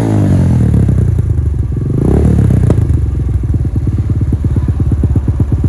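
Motorcycle engine running through a Noctus T5 aftermarket exhaust. It drops back from a rev to a pulsing idle, is blipped once briefly about two seconds in, then idles again.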